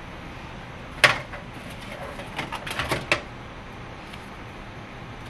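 Paper instruction sheet being handled and unfolded: a sharp click about a second in, then a quick run of crinkles and small clicks.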